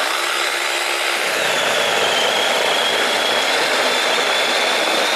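Cordless mini chainsaw with a brushed electric motor switching on suddenly and running steadily as its chain cuts through a branch about 7-8 cm thick. A steady high whine joins the chain noise about a second in.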